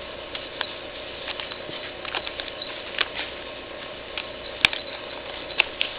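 Ferret rummaging in a packet of treats: scattered light crinkles and small clicks from the packet, with one sharper click about two-thirds of the way through.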